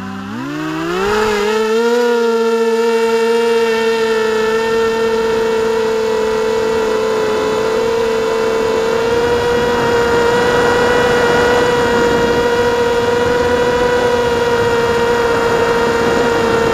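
HobbyKing FPV250 quadcopter's brushless motors and propellers spooling up for takeoff, heard from on board: a whine that rises in pitch over the first two seconds, then holds a steady pitch in flight.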